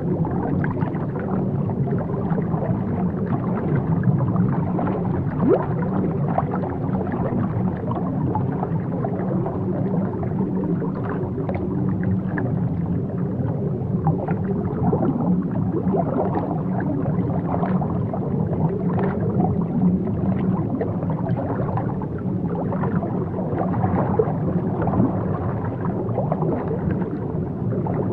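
Underwater ambience: a steady, muffled low rumble of water with scattered faint bubbling.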